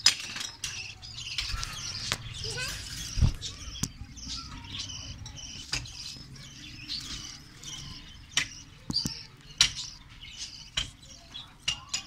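Budgerigars chirping and chattering in short high calls, with scattered sharp clicks and knocks from handling and a low thump about three seconds in.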